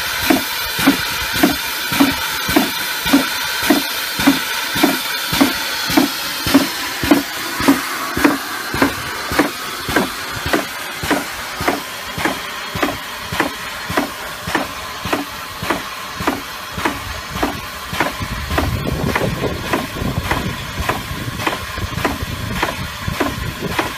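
4-inch air-operated double-diaphragm slurry pump running, each stroke giving a regular thump about every two-thirds of a second over a steady hiss. The thumps fade somewhat later on as a low rumble joins in.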